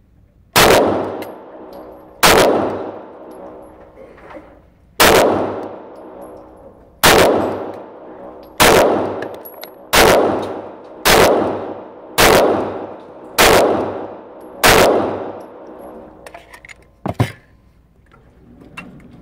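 Glock 19X 9mm pistol fired ten times, about two seconds apart at first and then about a second apart, each shot ringing out in the echo of an indoor range. A few small metallic clicks and one sharper, quieter clack follow about two seconds after the last shot.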